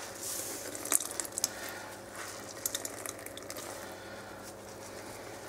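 Grated raw potatoes squeezed by hand to press out their moisture, the potato juice dripping into a bowl: faint wet squishing with a few small drips and ticks, clustered about a second in and again around the middle.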